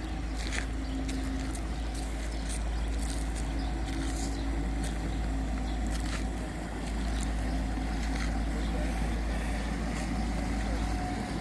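Boat engine running steadily, with a low rumble of wind on the microphone and scattered light clicks.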